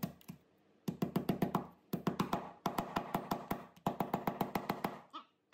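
Mallet tapping a laser-cut plywood panel, driving its tabs down into the slots of the mating piece. Quick runs of light taps, about eight a second, come in several bursts with short pauses between them.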